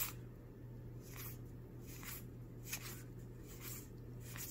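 Faint rustling and brushing of Magic: The Gathering cards and booster pack wrappers being handled, in a few soft, irregular strokes, over a steady low hum.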